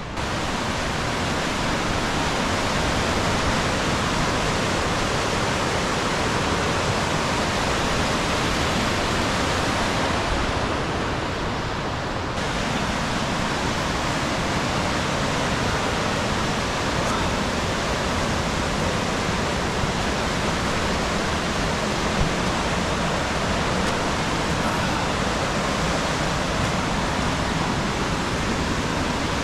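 Fast river rapids rushing in a steady, loud roar of whitewater.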